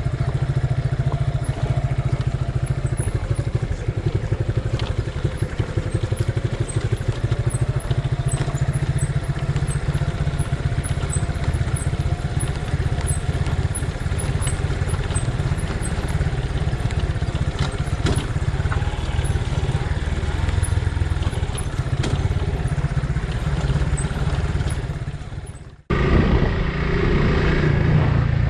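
Suzuki Gixxer 150's single-cylinder engine running steadily as the motorcycle is ridden, with a dense low rumble. It cuts off abruptly about 26 seconds in and resumes at once.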